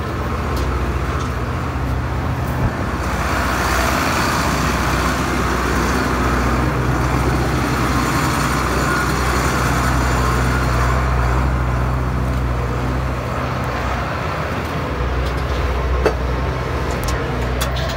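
Tractor engine running steadily at about 1200 rpm, driving the auger of a Cloverdale 500 T vertical feed mixer as it churns a wet baleage bale of alfalfa grass. A single sharp knock comes near the end.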